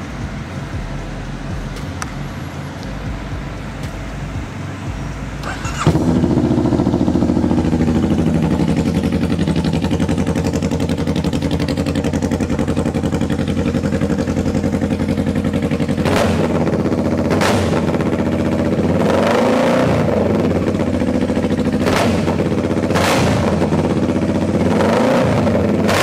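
Honda Rebel 500's parallel-twin engine breathing through a custom-built muffler. It fires up about six seconds in and idles steadily, then from about sixteen seconds it is blipped sharply on the throttle several times.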